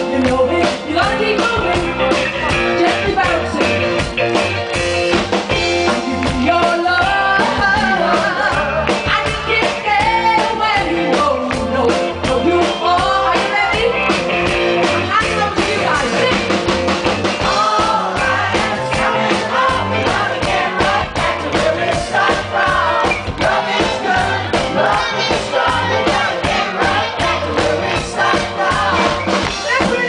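Live band performance: a woman singing lead into a microphone over drum kit and electric guitar, with a steady beat.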